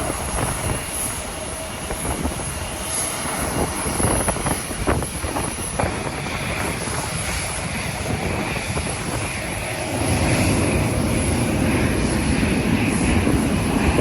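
Airliner engines running, the noise growing louder about ten seconds in, with gusting wind buffeting the microphone.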